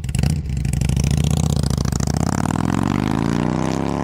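Motorcycle engine running, then revving up steadily so its pitch climbs through the second half.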